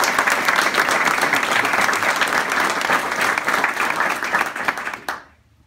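Audience applauding: many hands clapping in a dense patter that dies away about five seconds in.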